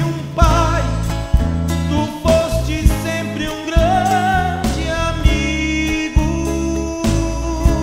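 Gaúcho native-style song: guitar and bass accompaniment with a wavering melody line over it.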